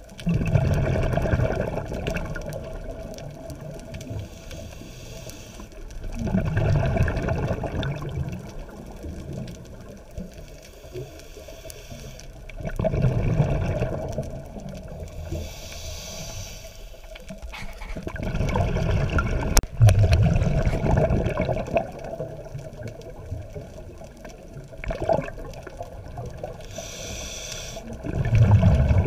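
Scuba diver breathing through a regulator underwater: a brief hiss on the inhale, then a low rumble of exhaled bubbles, with the bubble bursts coming about every six to eight seconds.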